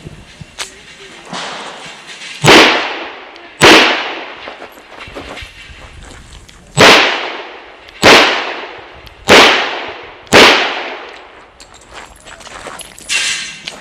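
Chiappa Rhino revolver in .40 S&W fired six times: a pair of shots about a second apart, a pause of about three seconds, then four shots about a second apart. Each shot trails off over about a second.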